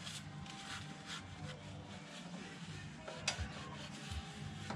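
Paper towel crinkling and rubbing as a gloved hand wipes around a car's oil filter, with one sharp click about three seconds in.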